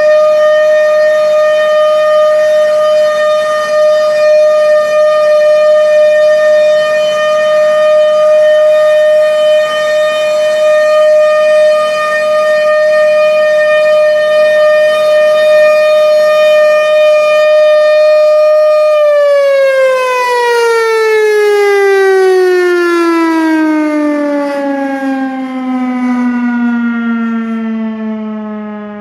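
A 1000A rotating outdoor warning siren holding a steady tone, then, about two-thirds of the way in, winding down: its pitch falls smoothly and it fades.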